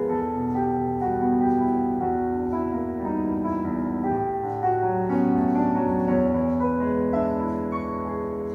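Slow, calm instrumental background music with long held keyboard notes shifting gently from chord to chord.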